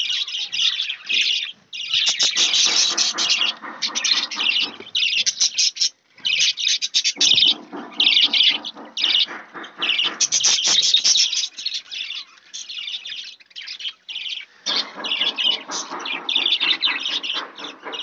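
A flock of budgerigars chattering and chirping in rapid bursts with short breaks between them, at times with a lower warbling mixed in.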